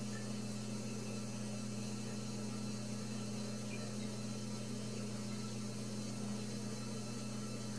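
Steady, unchanging electrical hum with a faint hiss underneath: room tone with no other sound.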